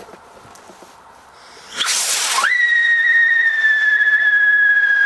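A firework salute rocket launching: a loud hiss about two seconds in, then a steady whistle that slowly drops in pitch.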